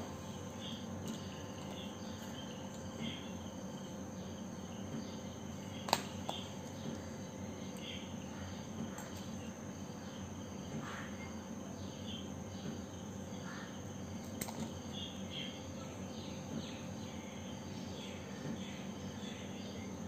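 Scissors snipping paper in short, scattered cuts, with a sharp click about six seconds in and another a little after halfway. Behind them runs a steady background hum with a constant high tone.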